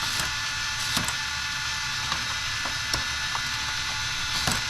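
Small electric motors of toy remote-control battle robots whirring steadily, with several sharp plastic clacks as the robots knock and grab at each other.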